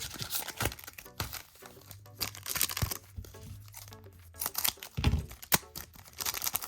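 Trading-card pack wrapper being torn open and crinkled as the cards are pulled out, over background music.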